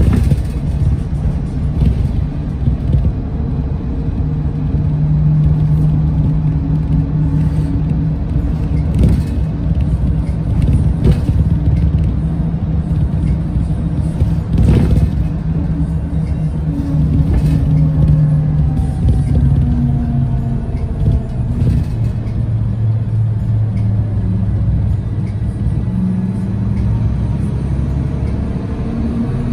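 Nova Bus LFS city bus heard from inside while under way: a steady engine and drivetrain rumble with a held low tone that drops in pitch about two-thirds of the way through and rises again near the end.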